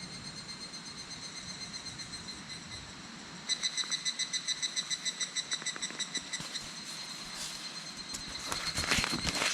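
Higurashi (evening cicadas) calling, a rapid high-pitched pulsing trill: a fainter call first, then a louder one starting about three and a half seconds in and stopping about six seconds in. Near the end, rustling and crackling.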